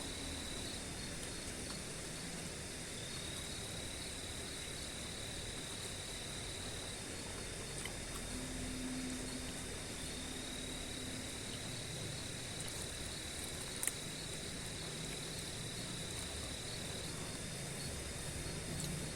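Night-time crickets trilling in one continuous high tone, over a fainter, higher hiss of other insects. A single faint click about fourteen seconds in.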